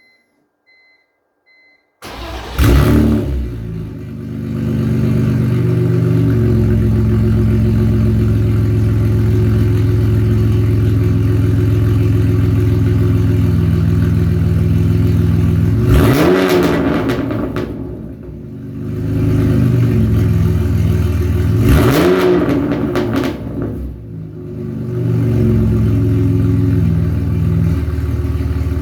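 A 2001 BMW E46 330Ci's 3.0-litre straight-six, breathing through a custom single 3-inch exhaust, starts about two seconds in. It flares briefly, then settles to a steady idle. It is revved twice, about six seconds apart; each rev rises, falls and dips before settling back to idle.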